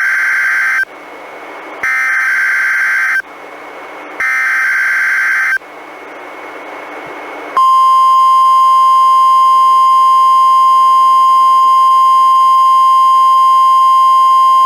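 NOAA Weather Radio required weekly test on a Reecom R-1630 weather radio. First the end of one SAME digital header burst and then two more, each a buzzing data burst about a second and a half long, with faint hiss in the gaps. About seven and a half seconds in, the steady 1050 Hz warning alarm tone starts and holds.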